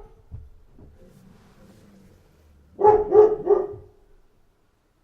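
Dog barking: three quick barks in a row about three seconds in, after the tail of an earlier bark at the start and a faint low sound between them.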